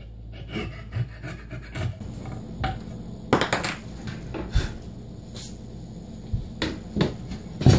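Coping saw rasping through a wooden board in a few last short strokes as the cut nears its end, followed by sharp wooden knocks and clatters as the saw and wood are handled.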